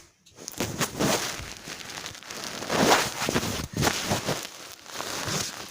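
Irregular rustling and crackling close to the microphone, loudest about three seconds in.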